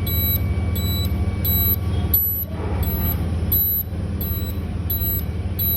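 CO2 laser marker's galvo scanner head running with a high short chirp repeating about every 0.7 s over a steady low hum. The owner takes the noise, together with poor marking, as a sign that the galvo head is faulty.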